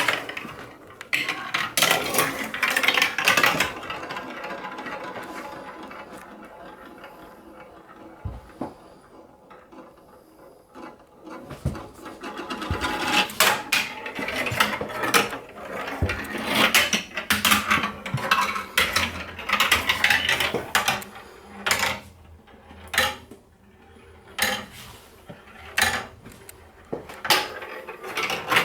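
A marble rolling down a long plastic Hubelino/Duplo-compatible marble run, rattling along the track pieces with frequent clicks and knocks. It fades to a quieter roll between about six and eleven seconds in, then clatters louder again with sharp knocks as it drops through the pieces.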